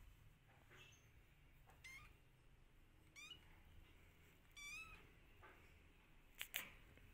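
A hungry kitten meowing faintly, several short high cries about a second apart, the longest about two-thirds of the way through. Two sharp clicks near the end.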